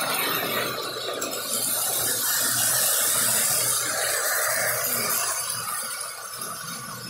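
Model trains running on the layout's track: a steady rattle of wheels on the rails with a hiss that is loudest a couple of seconds in, growing fainter near the end.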